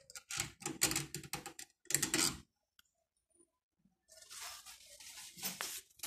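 Doorknob parts clicking and rattling as the metal knob assembly is handled and fitted into the door, a quick run of clicks in the first two seconds, then rubbing and rustling from about four seconds in.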